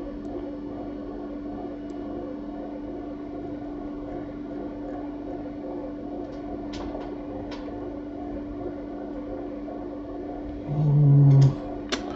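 Bread machine humming steadily in the background, one low even tone. There are a few faint clicks, and a short, louder low tone near the end.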